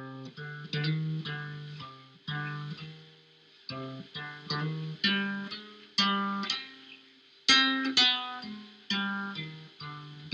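Intro music: a guitar playing plucked notes and chords, each note ringing and fading.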